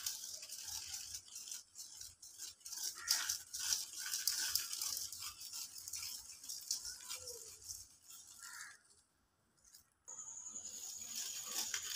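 Coil whisk rattling and scraping rapidly against the bowl as it beats ghee and powdered sugar together, stopping for about a second near the end.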